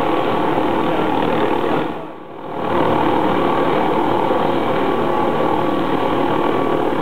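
McDonnell Douglas MD 520N NOTAR helicopter running loud and steady at close range, turbine and rotor together. The sound dips briefly about two seconds in, then returns at full level.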